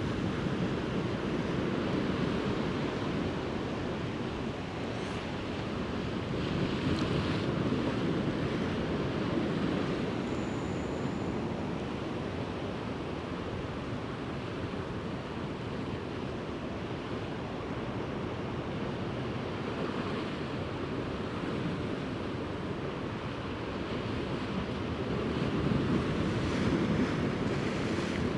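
Sea waves washing and breaking against shore rocks, swelling and easing, with wind buffeting the microphone.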